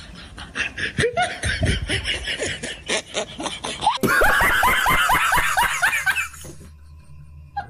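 Young women laughing in quick repeated bursts of ha-ha, louder in the second half, then stopping about six seconds in.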